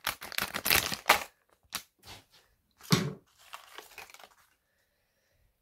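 Foil blind-bag packet crinkling as it is handled and torn open: a dense run of crackling for the first second or so, then a few separate rustles and a louder thump about three seconds in, dying away near the end.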